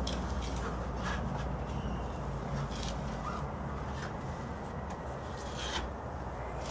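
Faint scrapes and light taps of a putty knife spreading joint compound along the edge of a ceiling drywall patch, several times over a steady low background hum.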